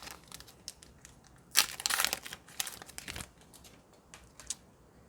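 Foil booster pack wrapper crinkling as it is torn open and the cards are pulled out. The loudest crinkle comes about one and a half seconds in, with scattered quieter rustles dying away near the end.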